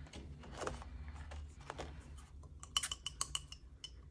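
Paper rustling as a printed sheet is laid on the desk, then a six-sided die rolled and clattering on the hard surface: a quick run of sharp ringing clicks about three seconds in.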